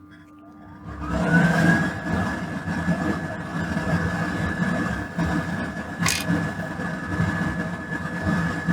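Fume extractor fan switched on: its motor spins up with a rising whine and settles into a steady hum over rushing air. A sharp click about six seconds in.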